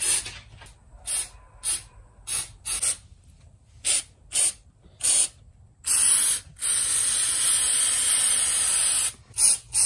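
Aerosol can of rubber sealant spray hissing in a series of short squirts, then one long spray of about three seconds, then two quick squirts near the end.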